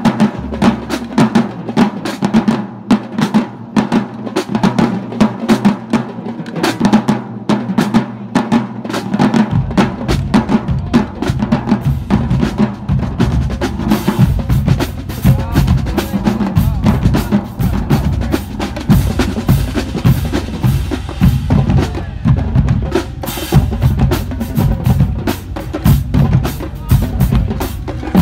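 College marching drumline playing a fast cadence on snare drums, with the bass drums coming in about ten seconds in and the full line playing loud from there.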